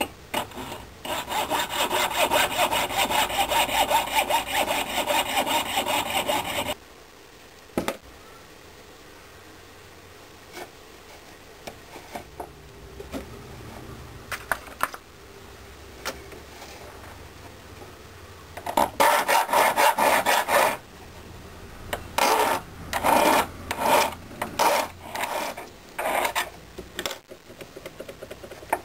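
Jeweller's piercing saw cutting through the sprue of a freshly cast silver pendant held on a wooden bench pin: fast, even strokes for about six seconds. Then a pause with a few light clicks, and later more short bursts of rasping strokes.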